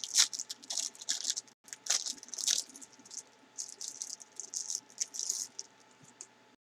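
Crinkling and rustling of a snack's packaging being handled and opened, in quick irregular bursts that stop near the end.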